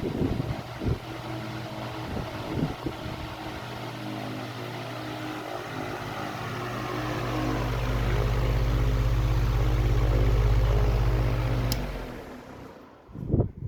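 Arge 60 cm oscillating wall fan running, a steady motor hum under the rush of air from the blades. It grows louder over several seconds, then fades away about twelve seconds in, and a single knock sounds near the end.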